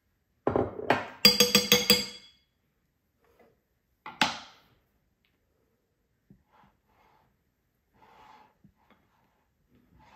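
Spatula knocking against the rim of a glass mixing bowl to shake off egg whites: a quick run of ringing clinks, then a single knock a couple of seconds later. After that the spatula folding the mousse mixture is only faint.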